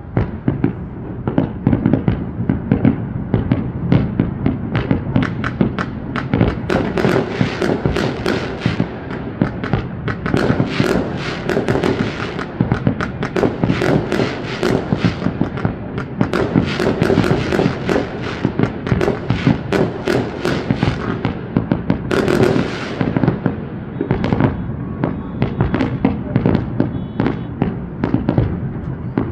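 Fireworks display: a dense, rapid barrage of bangs, many per second without a break, with a brief hiss about three-quarters of the way through.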